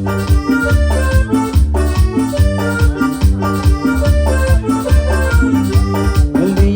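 Cumbia played on an electronic keyboard: an organ-like lead over a steady bass-and-drum beat with no vocals.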